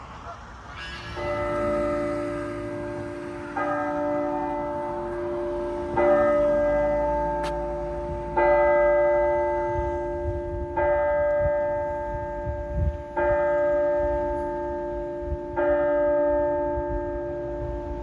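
A single bell tolling, struck seven times at a slow, even pace of about one stroke every two and a half seconds, each stroke ringing on until the next.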